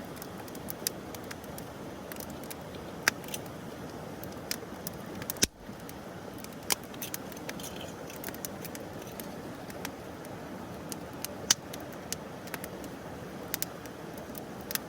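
Wood fire crackling: irregular sharp pops and snaps over a steady hiss, with a brief break about five and a half seconds in.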